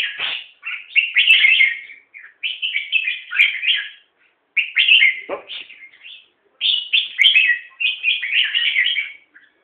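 Caged red-whiskered bulbul, an eight-month-old male, singing: about five short, loud, chattering song phrases with brief pauses between them.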